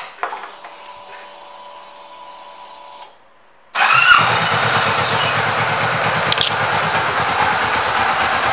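2023 Kawasaki Vulcan S Cafe's 649 cc parallel-twin engine being started. A click and a faint steady hum with the ignition on come first. The engine fires suddenly about three and a half seconds in and settles into a steady idle.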